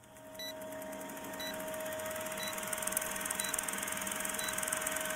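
Film-projector sound effect for a countdown leader: a steady mechanical whirr with fast clatter, fading up over the first two seconds, and a short high beep once a second marking each number of the countdown.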